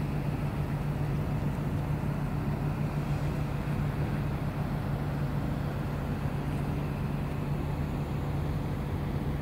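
Steady low hum of an idling engine, even and unchanging throughout.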